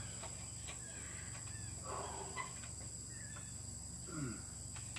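Faint outdoor background of a steady, high insect chirring, with a few faint brief sounds over it.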